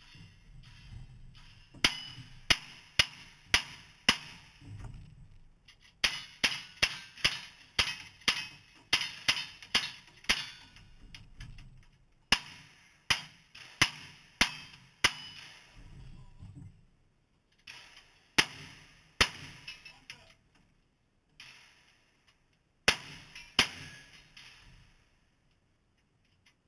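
Strings of gunshots from a cowboy action shooting stage, about two shots a second, broken by short pauses as the shooter changes guns. Steel targets ring after many of the shots.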